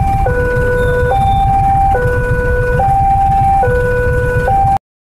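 Railway level-crossing warning alarm sounding a steady two-tone high-low chime, each tone held just under a second, the signal that a train is due and the barrier is down. Motorcycle engines and traffic rumble underneath, and the sound cuts out abruptly near the end.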